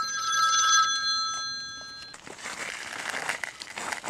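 A phone ringing: a chord of several steady high tones that pulses and stops about two seconds in. A crackly, hissing rustle follows.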